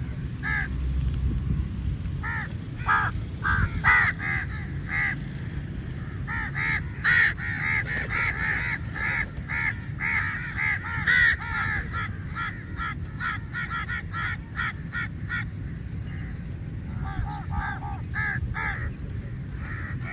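A large flock of crows cawing, many short harsh calls overlapping. The calling is densest in the middle, thins out briefly about three quarters through, then picks up again near the end, over a steady low rumble.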